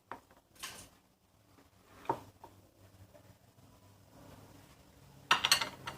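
Quiet kitchen handling sounds while ingredients go into a mixing bowl: a few light clicks and knocks, then a brief louder clatter about five seconds in.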